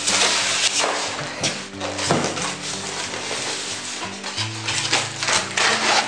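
Rustling and scraping of packaging as a microwave oven is slid out of its cardboard box and a styrofoam end cap and plastic wrap are handled, in several loud noisy bursts, over background music.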